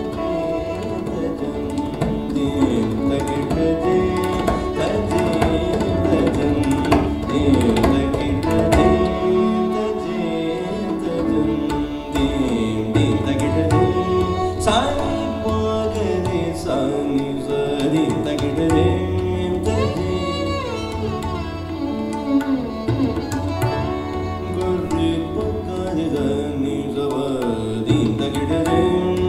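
Live ensemble music led by tabla drumming, with a melody line that slides up and down in pitch above the drums.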